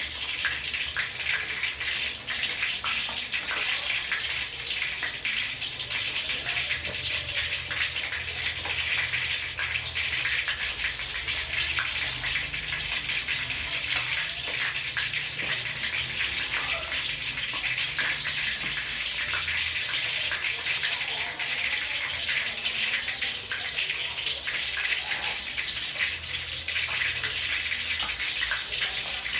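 Whole fish and garlic cloves shallow-frying in hot oil in a wok: a steady sizzle with constant small crackles and pops of spattering oil.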